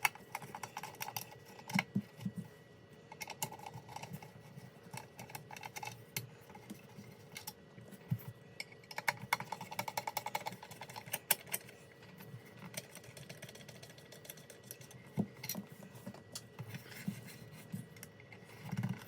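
Irregular small clicks, taps and light rattles of hands handling a plastic light housing and its wires, with a busier run of clicking about halfway through. A faint steady hum sits underneath.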